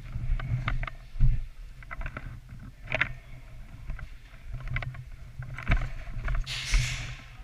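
Low rumble of a moving, handled microphone with scattered sharp clicks and knocks at irregular moments, and a short hiss about six and a half seconds in.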